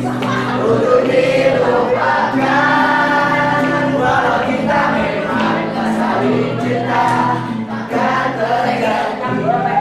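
A group of young voices singing a song together in chorus, accompanied by an acoustic guitar.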